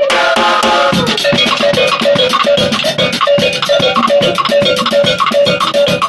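Live jazz-fusion band playing at full volume: busy drum-kit playing with fast cymbal and drum hits under a short melodic riff repeated over and over.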